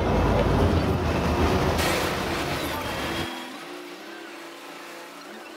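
Motorboat engine running as the boat cruises along a canal, with a loud low rumble of wind on the microphone and rushing water. About three seconds in the deep rumble drops away abruptly, leaving a fainter, steady engine hum.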